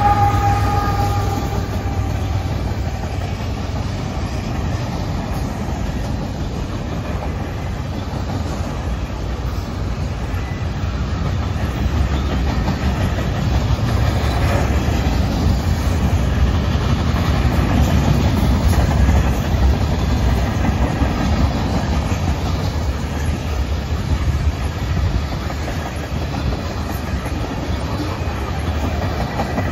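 Freight train cars rolling past: a steady rumble with the wheels clicking over the rails as tank cars and centerbeam lumber cars go by. In the first second or two, a high whine from the just-passed mid-train diesel locomotive fades away.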